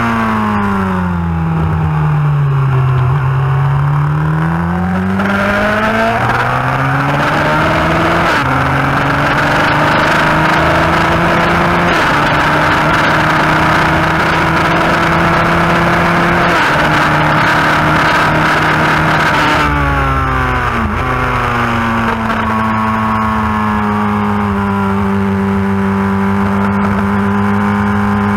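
Yamaha FZR1000's inline-four engine at racing speed, heard from on the bike: the engine note falls as the bike slows, then climbs hard through the gears with a short dip in pitch at each upshift, drops sharply under braking with downshifts about twenty seconds in, and holds a steady note through a long corner.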